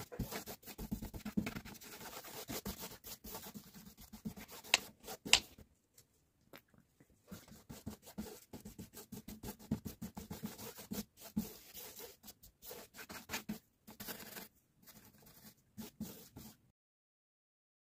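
Close hand work on model scenery materials: irregular scraping and rubbing with many small clicks and taps, pausing briefly about six seconds in and breaking off near the end.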